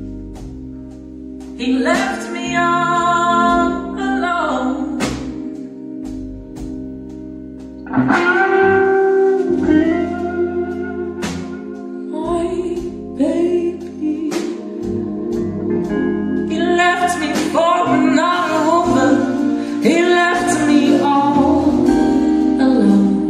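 A live blues band playing: a woman sings in phrases over electric guitar and a drum kit, with sustained notes held underneath.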